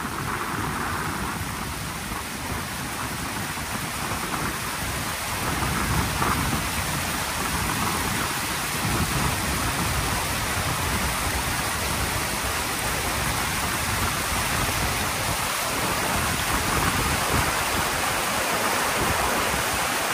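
Fast white water rushing steadily, with gusty wind rumbling and buffeting on the microphone, heavier from about five seconds in.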